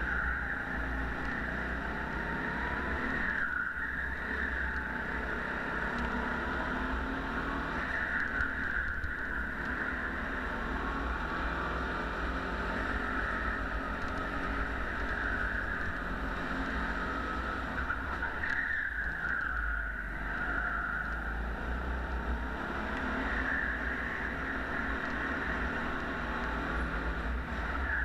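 Go-kart engine running hard on a lap, heard from on board. Its note rises and falls and dips briefly a few times, as when the throttle comes off for corners.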